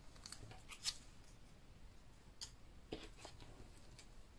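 Faint rustles and light ticks of small paper die-cut pieces being handled and laid down on a cutting mat. A few short sounds come about a second in and again near three seconds in.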